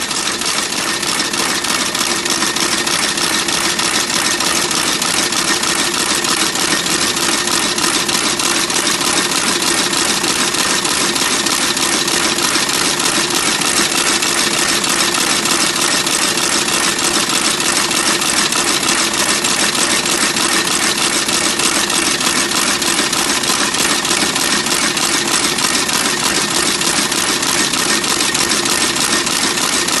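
Industrial sewing machine running at a steady, fast rate, a continuous even mechanical clatter.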